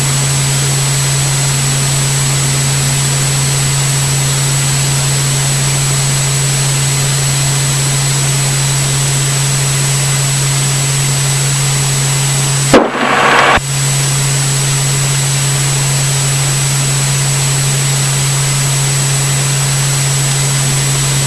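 Diamond DA40 light aircraft's engine and propeller running steadily at taxi power, an even drone heard inside the cockpit. About thirteen seconds in, a short loud burst of noise cuts across it for under a second.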